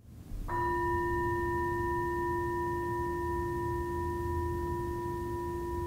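A singing bowl struck once about half a second in, then ringing on with a steady low tone and several higher overtones that barely fade.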